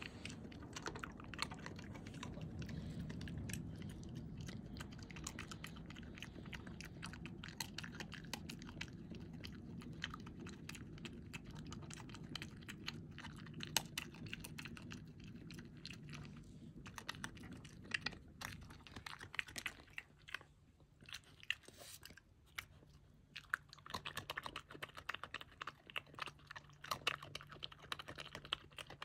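European badger chewing and crunching peanuts and dry food, a run of crisp crunches that come thickest near the end.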